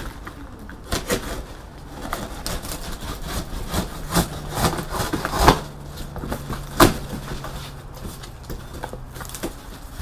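A knife slicing packing tape on a cardboard shipping box and the flaps being pulled open: irregular scraping and ripping with a few sharp knocks against the box.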